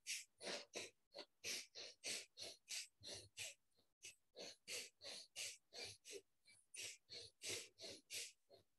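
Bhastrika (bellows breath) through the left nostril alone, the right nostril held shut with the thumb: a rapid, even run of short, forceful nasal inhales and exhales, about three a second, faint.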